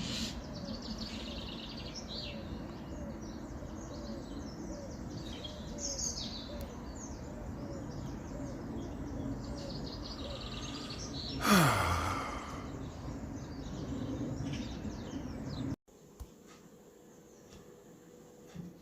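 Garden birdsong: several birds chirping and singing over a steady background hum. About eleven seconds in, a loud brief whoosh sweeps down in pitch, and near the end the sound drops suddenly to a much quieter background.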